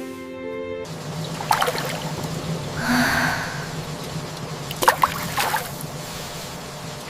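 Soft music for the first second, then water running and splashing, with a couple of sharper splashes and a surge of water about three seconds in.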